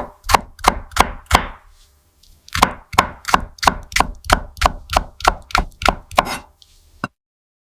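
A run of sharp strikes: four quick ones, a pause of about a second, then about a dozen more at roughly three a second, ending with a single click.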